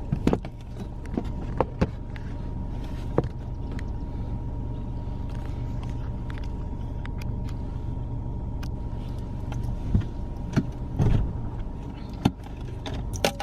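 Car driving slowly, heard from inside the cabin: a steady low engine and road rumble with a faint steady hum, broken by scattered clicks and knocks.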